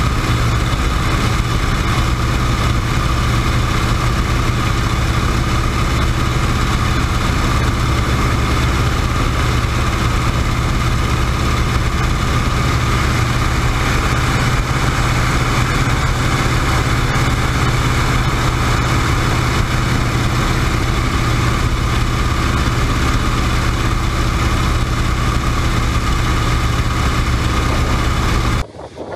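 The WACO YMF-5 biplane's Jacobs seven-cylinder radial engine and propeller running steadily at climb power, heard from the open cockpit with wind rushing past, as the plane lifts off and climbs. Near the end it cuts off abruptly to quieter wind noise.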